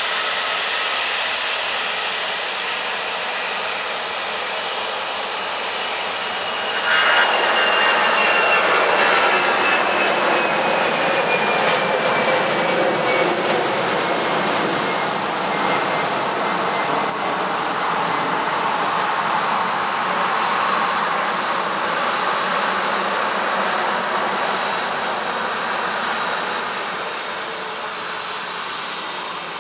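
Boeing 787-8 Dreamliner's jet engines running as it taxis. The sound grows suddenly louder about seven seconds in, with a whine that falls in pitch over the next few seconds, and fades near the end.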